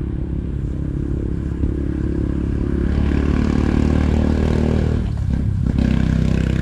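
An engine running steadily, growing louder about three seconds in, dropping away briefly near five seconds, then picking up again.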